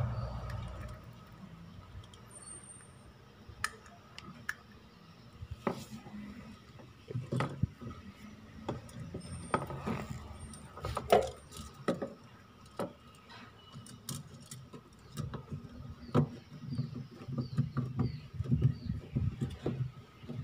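Scattered clicks and light knocks of plastic and rubber parts being handled as a new drain valve rubber is fitted into a twin-tub washing machine's drain valve, busiest near the middle and toward the end.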